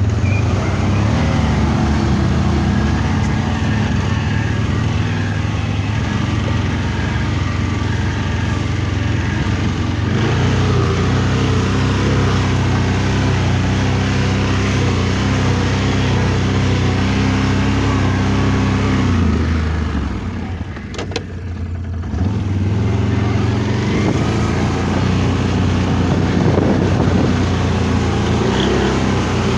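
ATV engine running under steady throttle off-road, easing off about twenty seconds in and then picking back up.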